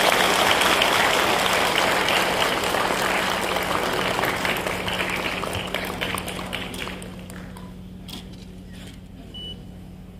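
Audience applauding, dying away about seven seconds in and leaving a few scattered claps, over a steady low hum.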